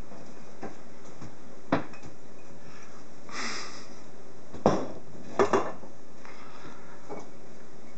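Bar tools being handled during flair bartending: a bottle and metal shaker tins clink and knock against each other and the bar counter in a few sharp separate strikes, two of them close together about five and a half seconds in. A brief rushing, rattling noise comes a little before the middle.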